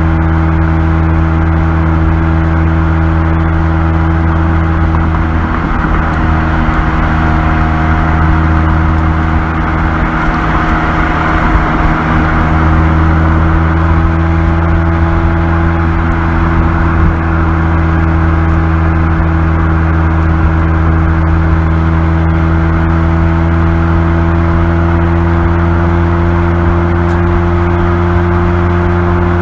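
Mazda Roadster's engine and exhaust running steadily at low revs while cruising, a low even drone that holds its pitch, over a hiss of tyre and road noise.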